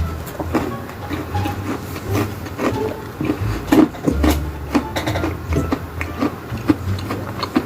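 Someone biting and chewing a hard, very crunchy cookie: a run of irregular sharp crunches.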